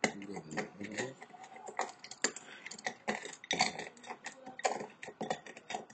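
Aspirin tablets crackling: a quick, irregular run of small sharp clicks and taps.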